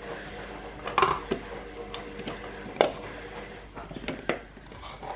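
Small washed potatoes being put into a bowl on a kitchen scale: several light knocks at irregular intervals.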